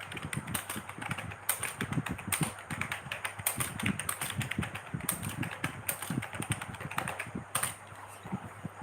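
Rapid, uneven keystrokes on a computer keyboard, typing at speed, that thin out and stop near the end.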